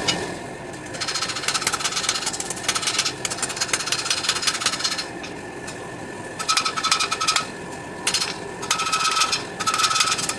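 Rapid runs of hammer blows on steel at the anvil, forging spring steel, in several bursts with short pauses between them and a metallic ring in the later runs.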